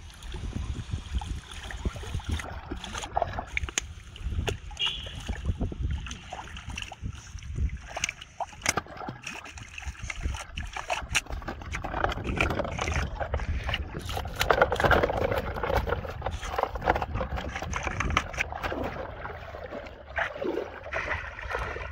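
Shallow river water splashing and sloshing around a wading person handling plastic-bottle fish traps, with water pouring out of a bottle and many sharp clicks and knocks of plastic bottles being handled.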